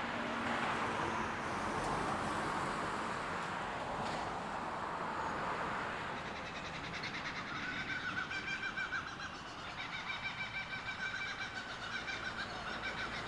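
NSW 38 class steam locomotive 3801, double-heading, getting under way: a steady rush of steam, then from about halfway a fast rhythmic pulsing with high tones over it.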